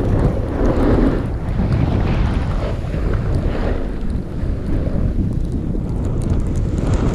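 Heavy wind buffeting a body-worn camera's microphone as it rides downhill on a snowboard. The rushing rumble swells a few times, mixed with the hiss of the board sliding over snow.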